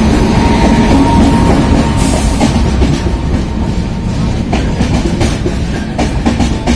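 Indian Railways express train pulling into the platform: an electric locomotive and then its passenger coaches passing close by with a loud, steady rumble of wheels on rails. A thin steady whine is heard as the locomotive goes by, fading after about three seconds, then wheels clicking over rail joints as the coaches pass.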